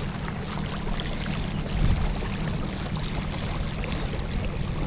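Kayak under way on an electric trolling motor: water rushing and splashing along the hull, over a steady low hum.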